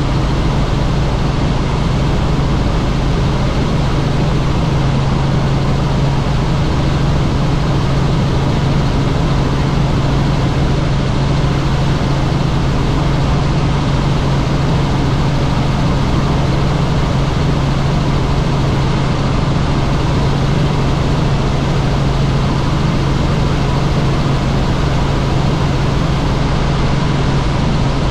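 Helicopter in flight: a steady, loud drone of rotor and engine noise with a strong low hum.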